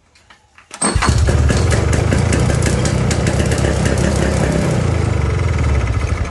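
1968 Eaton Viking snowmobile's two-stroke engine firing up about a second in and roaring loud and steady for about five seconds, starting to die away at the very end. It is running only on a little mixed gas put into it, with no steady fuel supply from its seized carburetor.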